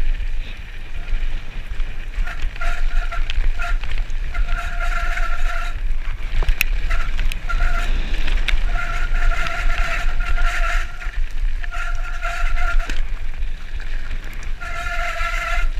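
Mountain bike rolling fast down a loose gravel and dirt track, with wind rushing over the microphone and tyres crunching on stones. A high steady tone from the bike comes and goes in short stretches throughout, with a few sharp clicks and knocks from the rough ground.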